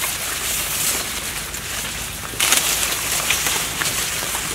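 Leaves of tall cornstalks rustling and crackling as people push through them, a dry scratchy hiss that gets louder about two and a half seconds in.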